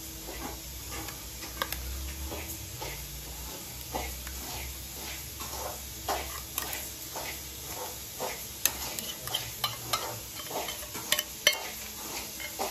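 Ginger-garlic paste being added and mixed into raw chicken pieces in a bowl for a marinade: irregular clicks, taps and scrapes against the bowl.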